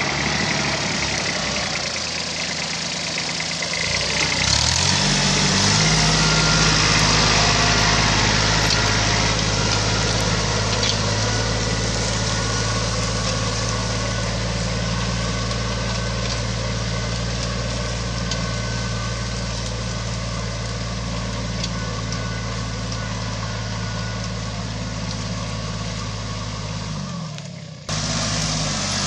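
Kubota Aste A-195 compact tractor's diesel engine running under load while pulling a two-furrow plough through the soil. Its pitch rises about five seconds in, then holds steady.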